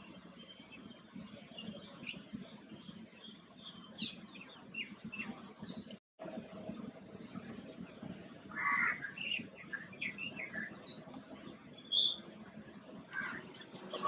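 Assorted small garden birds chirping and calling, many short high notes and whistles scattered throughout, over a low steady background hum. The sound cuts out completely for a moment about six seconds in.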